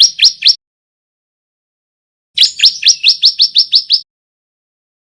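A male bar-winged prinia (ciblek) practising its song in rapid runs of sharp chirps, each note flicking upward in pitch. A few chirps end just after the start, then about two seconds later comes a fast string of about ten chirps lasting about a second and a half.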